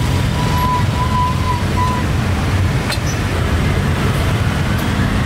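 Steady low rumble of background noise, with a thin tone near 1 kHz sounding on and off during the first two seconds and a faint click about three seconds in.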